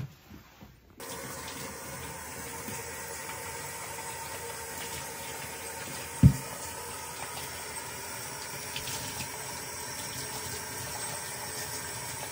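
Tap water running steadily from a faucet into a utility sink, starting suddenly about a second in. Partway through there is one loud, short, low thump.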